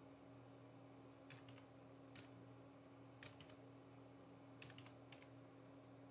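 Near silence with a low steady hum, broken by four brief groups of light clicks or taps.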